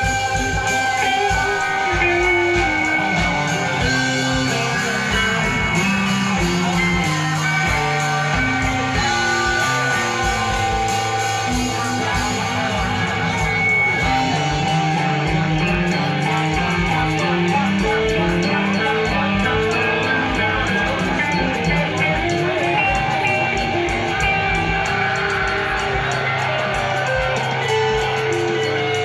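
Live band playing an instrumental rock jam: electric guitars over a moving bass line and drums.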